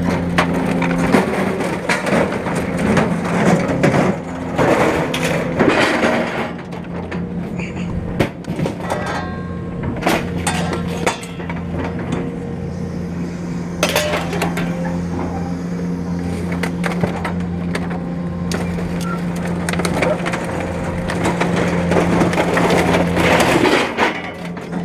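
Scrap-handling excavator running with a steady diesel hum while its grapple claw grabs and drags scrap metal off a wooden trailer deck, knocking and scraping against the boards, with bursts of clatter and crashes several times.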